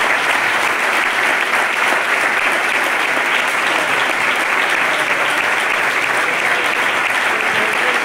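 Audience applauding steadily: many hands clapping together in a dense, unbroken patter.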